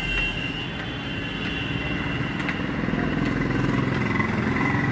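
A motor engine running steadily, getting a little louder over the last couple of seconds.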